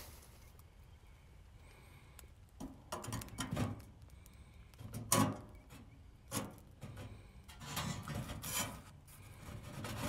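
Bark and dry twigs being handled and pushed into a small metal wood stove, in several separate bursts of rustling and scraping.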